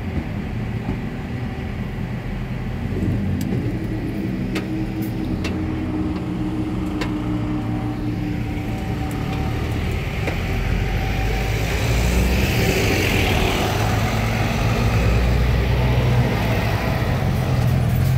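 Diesel engines of a bus and a heavy lorry close by, pulling away over a level crossing. The engine sound grows louder from about ten seconds in.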